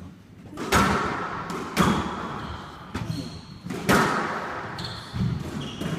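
Squash rally: the ball is struck by rackets and smacks off the court walls, one loud, sharp hit about every second, each ringing in the court. Short squeaks of shoes on the wooden floor come between the hits.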